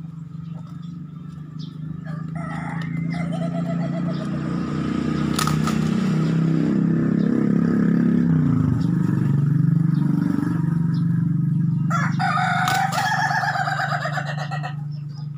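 A rooster crows once, a long call of nearly three seconds near the end, after a shorter call a couple of seconds in. Under it, a low engine hum swells to its loudest midway and dips in pitch, like a motor vehicle passing.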